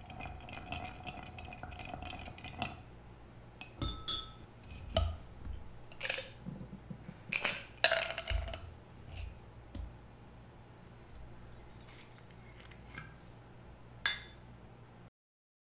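A long bar spoon stirs ice cubes in a glass mixing glass, ringing steadily for the first few seconds. Then ice knocks and clinks against the glass in separate sharp hits about once a second as the glass is lifted and handled, with one last clear clink near the end before the sound cuts off abruptly.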